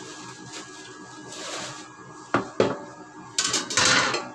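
Plastic bubble wrap rustling and crinkling as a square frying pan is pulled out of it, with two sharp knocks of the pan about two and a half seconds in and the loudest crinkling near the end.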